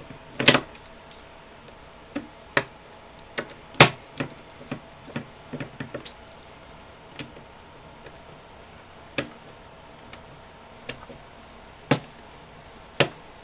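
Irregular clicks and taps of small tools and parts handled on an airsoft rifle's gearbox during disassembly, about fifteen sharp knocks spaced unevenly, the loudest about half a second and four seconds in.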